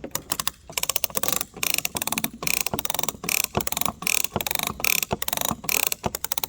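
Hand-operated poly strap tensioner ratcheting the strap tight, its pawl clicking in quick rattling runs with each pump of the handle, a new run about every three-quarters of a second.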